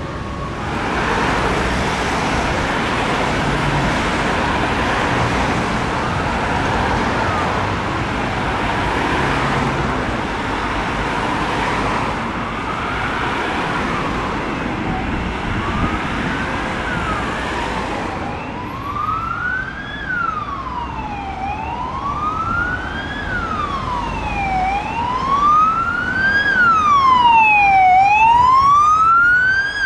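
Steady road traffic noise, then an emergency vehicle's siren sweeping slowly up and down in a wail, each rise and fall taking about three seconds. It grows louder toward the end as the vehicle approaches.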